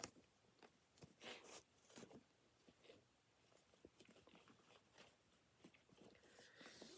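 Faint rustling and light clicks of box contents being handled: near silence apart from a few soft rustles.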